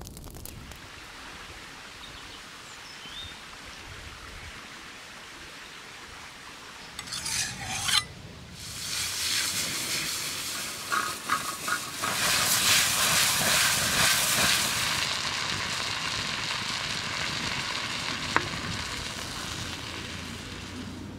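Food frying in a pan held over an open wood fire: a quiet hiss at first, then loud sizzling from about eight seconds in, strongest in the middle and slowly fading near the end.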